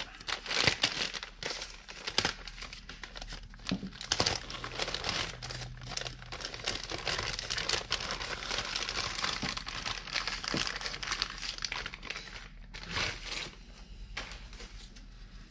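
Thin plastic bag crinkling and rustling as gloved hands pull a part out of it; the crinkling dies down near the end.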